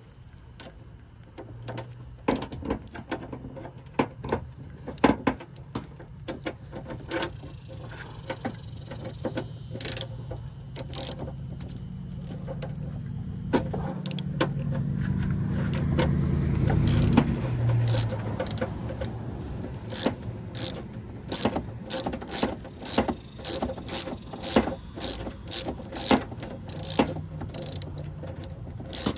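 Hand ratchet with a 10 mm socket on a swivel clicking as it loosens the bolt that holds a truck antenna base. The clicks come in short strokes, about two a second in the later part. A low rumble swells and fades around the middle.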